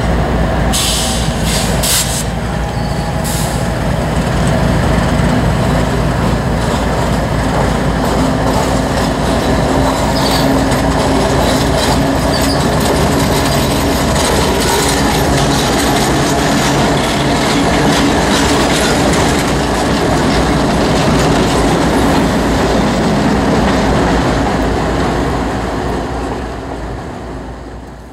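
Canadian Pacific diesel freight locomotives rolling past at close range: a loud, steady engine rumble with a held hum and the clatter of wheels on rail. There are a couple of brief high wheel squeals about a second and two seconds in, and the sound fades near the end as the locomotives move away.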